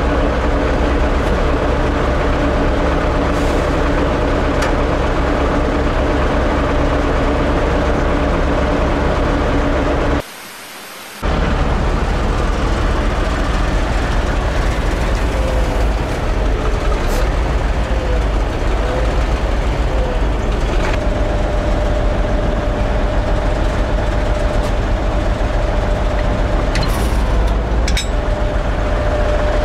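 A wheeled farm tractor's diesel engine runs steadily close by. A steady whine joins about two-thirds of the way through. The sound cuts out for about a second a third of the way in.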